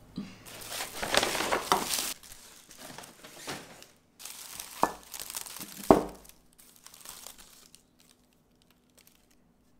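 Crinkling and rustling of packaging being handled, loudest in the first two seconds, with two sharp knocks a second apart near the middle, the second the loudest sound; it dies away near the end.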